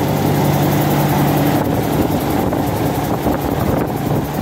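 Cummins ISM inline-six diesel engine running steadily in the truck, a constant low hum with mechanical clatter over it.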